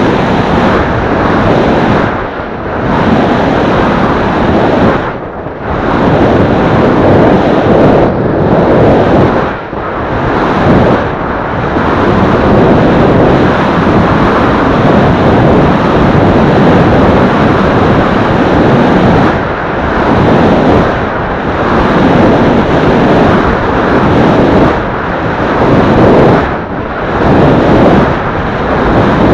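Loud wind buffeting on the microphone of a camera riding on a road bike at speed, a steady rush that eases briefly every few seconds.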